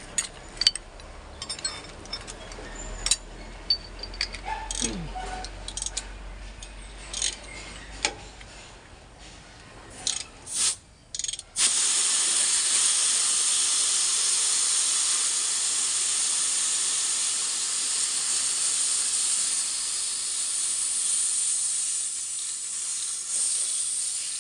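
Gas hissing out of the truck's air-conditioning line as a fitting at the compressor is loosened: a loud, steady hiss that starts suddenly about halfway through and eases off near the end, which the mechanic calls all air. Before it, light metallic clinks of wrenches on the fittings.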